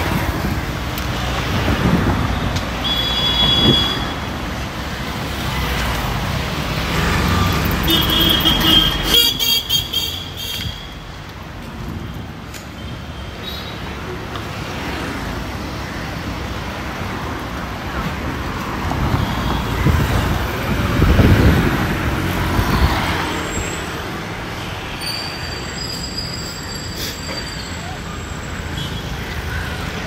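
Busy city street traffic: engines and tyres of passing vehicles, swelling as they go by, with horns tooting several times: a few seconds in, around nine seconds, and again near the end.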